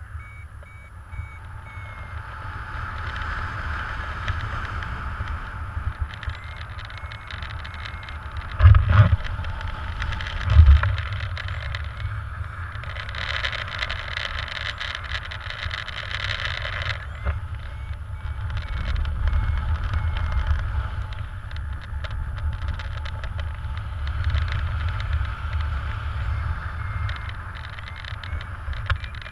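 Wind rushing over a helmet-mounted camera microphone in paraglider flight: a steady deep rumble with hiss, with two louder gusts about nine and ten and a half seconds in. Faint short beeps from the variometer come through now and then.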